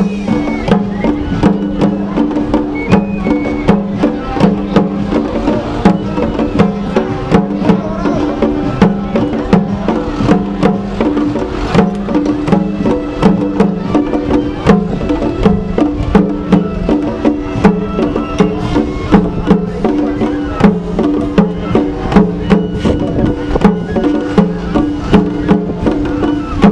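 Japanese festival drumming: a small handheld taiko and a large barrel taiko struck with sticks in a steady, fast rhythm, with sharp woody clicks, over a held low melody.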